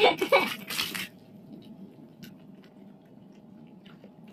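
Faint drips and small light clicks of water and mesh as a fishing net is pulled up by hand out of the water into a boat.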